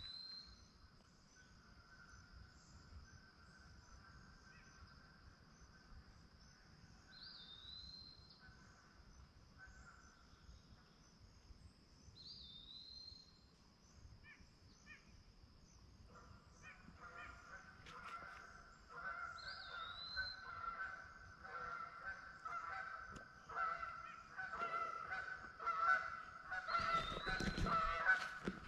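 A flock of Canada geese honking, faint at first, then louder and more continuous from about halfway through as the flock comes closer. A small bird's short rising note repeats every five seconds or so.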